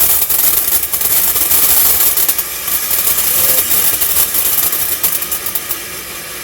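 Firework burning with a loud, steady hiss and rapid crackling, easing off slightly near the end.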